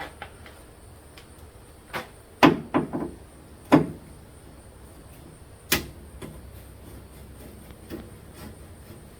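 Hand tools knocking and clinking against the steel of a car door while its last bolts are undone: a handful of separate sharp knocks, the loudest cluster about two and a half to four seconds in and another single knock near six seconds.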